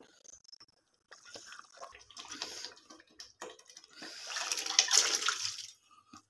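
Cooked chicken pieces and their curry liquid poured from a pot into a pan of thick gravy, splashing and sloshing for about two seconds near the end. A few knocks and clinks of the pot being handled come first.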